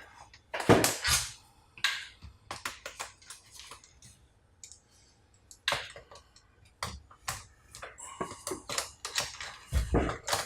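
Irregular clicks, taps and light knocks of the hard plastic parts of a Toshiba 4100XCDT laptop being handled and worked apart, with a louder knock about a second in and a dull thump near the end.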